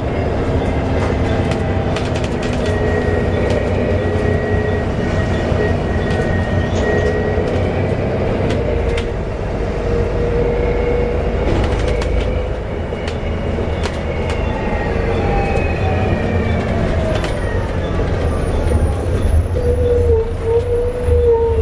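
Interior of a Volvo B7TL double-decker bus on the move: a low rumble with several whining tones that fall in pitch about three-quarters of the way through as the bus slows, plus scattered rattles and clicks. The whine is the strange noise that the uploader puts down to the differential and a hoover-like cooling fan.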